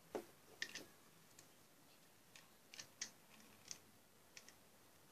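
Scattered light taps and clicks of small plastic toys being handled and set down, about ten over a few seconds, faint over a quiet background.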